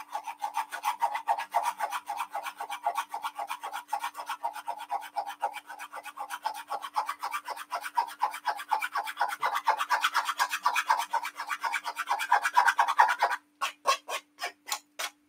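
A spoon scraping quickly round a stainless steel mesh strainer, pressing wet blended green juice pulp through the mesh: a fast rasping, about five strokes a second, that slows to a few separate scrapes near the end and stops.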